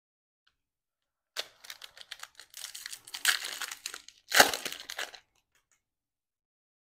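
Foil wrapper of a Panini Absolute football card pack crinkling in the hands and being torn open, with a patch of crackling about a second and a half in and the loudest tear about four and a half seconds in.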